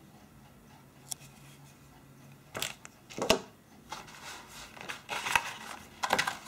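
Handling noise from an unboxing: a few sharp plastic clacks, the loudest about three seconds in, as a phone charger is set down on a wooden table, then cardboard rustling and scraping as the box's cardboard insert is lifted out.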